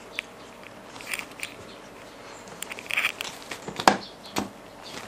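Close-up chewing and small crackles from eating crispy ayam geprek (smashed fried chicken) with rice by hand, with scattered short clicks; the loudest is a sharp click just before four seconds in.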